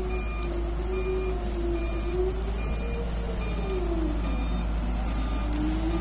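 Doosan excavator running with its travel/backup alarm beeping about one and a half times a second, over the diesel engine and a wavering machine tone that dips in pitch midway and rises again as the load changes.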